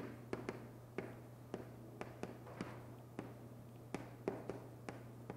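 Chalk tapping and clicking on a chalkboard while a formula is written: sharp, irregular taps, about two or three a second, over a low steady hum.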